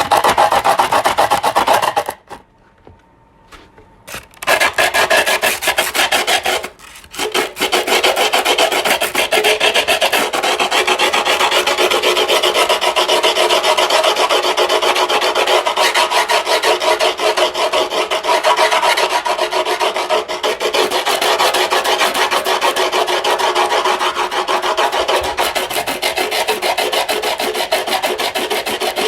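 Griptape being filed: a file rasped back and forth over the gritty surface in fast, continuous scratchy strokes. It stops for about two seconds a couple of seconds in and pauses briefly again around seven seconds.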